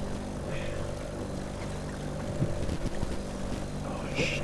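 Boat's outboard motor running steadily at trolling speed, an even engine hum over wind and water noise. A short, sharp higher noise comes near the end.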